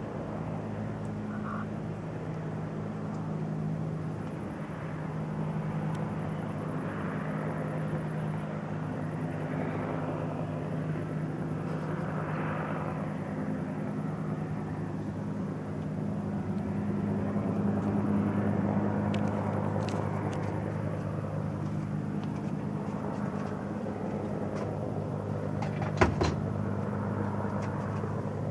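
Helicopter making a slow low pass, a loud, steady drone of engine and rotors that swells a little past halfway. A single sharp click near the end.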